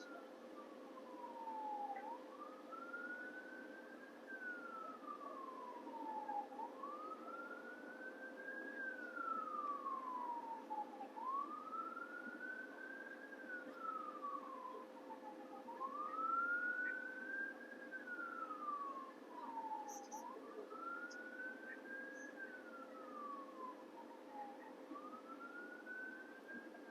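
Distant siren in a slow wail, climbing and falling in pitch about every four and a half seconds, over a steady low hum and faint background rumble.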